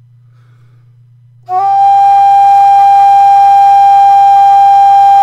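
Low D Qwistle whistle with a 3D-printed headjoint sounding a single steady high G in its second octave, starting about a second and a half in and held without a break or waver. The long hold on one breath shows the low air demand of its narrowed windway. A faint low hum lies underneath the quiet opening.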